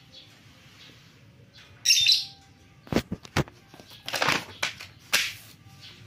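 Paper leaflets and a warranty card being handled and flipped: a run of sharp rustles and crinkles starting about two seconds in. Faint bird chirps sound in the background before that.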